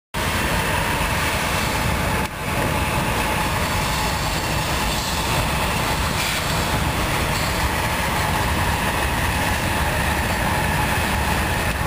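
Freight train rolling past, a steady rumble of cars on the rails with a faint high ring over it; the sound drops out briefly about two seconds in.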